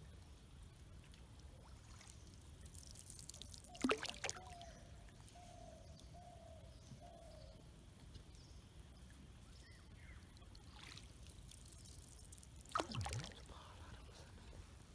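Water splashing and trickling beside a dugout canoe as it is propelled along the river: two short splashes about nine seconds apart, over a quiet low background.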